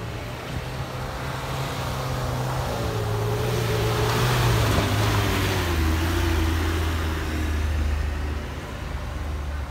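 Vehicle engines running on a dirt road. A pickup truck drives past close by, loudest about four to five seconds in, its engine note falling as it goes by, over the low running of a heavier truck engine.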